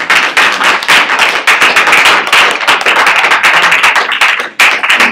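A small group applauding, with hands clapping close to the microphone; the claps briefly thin out about four and a half seconds in.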